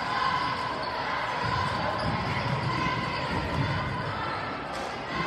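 A basketball bouncing on a gym floor during a game, with voices chattering behind it.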